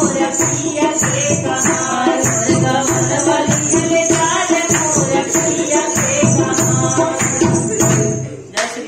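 Awadhi nirgun folk song with a woman singing over steady, jingling percussion, cutting off abruptly about eight seconds in, followed by a single click.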